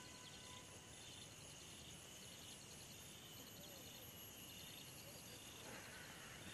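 Faint insects chirping in short rhythmic pulse-trains, about two a second, over a steady high-pitched drone and quiet outdoor hiss.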